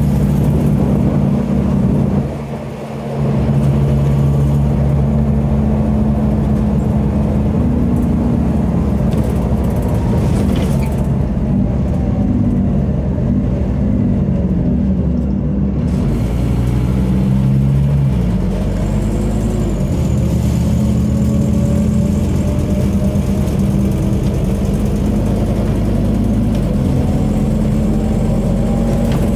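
The Scania DC09 five-cylinder diesel of a Scania OmniCity bus running under way, heard from inside the saloon near the back. There is a brief drop in engine noise a couple of seconds in, and a fainter whine that falls as the bus slows midway and rises again as it pulls away.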